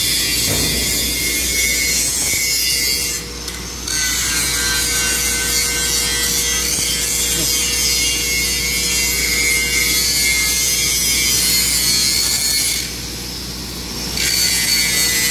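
Angle grinder grinding steel, a steady harsh grinding noise over the motor's whine. It eases off twice for about a second as the disc comes off the metal: about three seconds in and again near the end.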